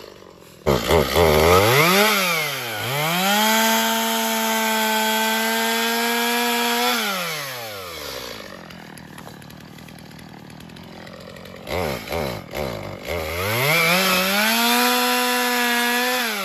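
Gas two-stroke chainsaw revving and cutting through thin logs. After a couple of quick throttle blips it holds a steady high-revving cut for about four seconds, then drops back to a quiet idle. A few more blips follow, then a second steady cut that stops abruptly near the end.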